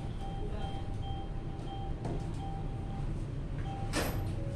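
Steady low rumble of room noise with a string of short, faint beeps. A soft click comes about halfway and a sharper click about four seconds in.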